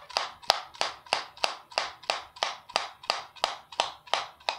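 A can of dipping tobacco being packed, flicked with the wrist so the lid snaps against a finger in steady sharp taps, about three a second.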